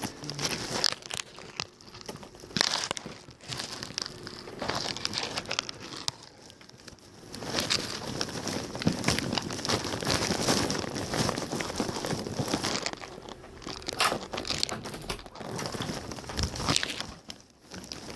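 Irregular rustling and crinkling, with a few sharper cracks.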